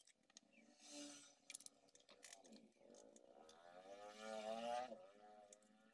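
Near silence with faint rubbing and clicking as a cloth is wiped over the bare glass of an LCD panel. A faint drawn-out pitched squeak-like tone rises slightly through the second half.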